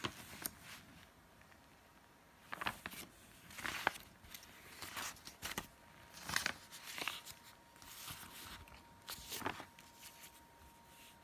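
Glossy paper leaflets rustling and crinkling as they are handled, folded shut and laid down, in short irregular bursts.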